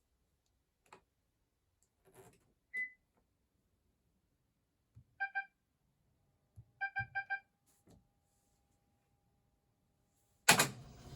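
Control-panel beeps from a Panasonic NA-VX9300L drum washing machine as its buttons are pressed to enter service mode: faint clicks, one higher beep about 3 s in, two short beeps around 5 s and three quick beeps near 7 s. About 10.5 s in there is a loud knock, then a steady noise with a low hum.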